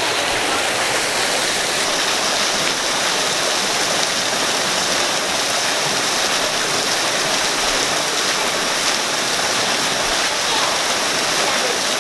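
Waterfall splashing into a pool, a steady rushing of water close by.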